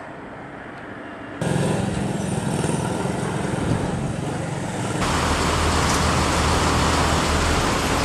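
Steady motor engine noise. It comes in abruptly after a faint hum about a second and a half in, then switches to a louder, deeper engine sound about five seconds in.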